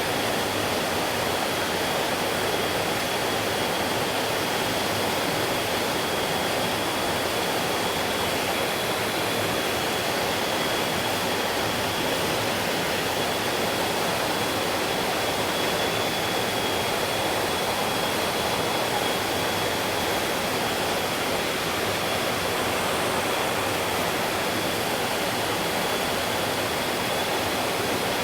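Stream water rushing steadily, an even unbroken noise of flowing water.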